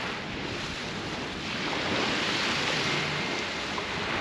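Sea waves washing up the shore, swelling in a long surge through the middle and easing off near the end.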